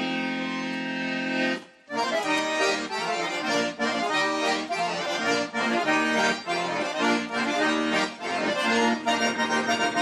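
A bayan and an accordion playing a lively folk piece together. A held chord breaks off after about a second and a half, and after a short pause the music goes on as a brisk run of short, detached notes that turns to quick pulsing chords near the end.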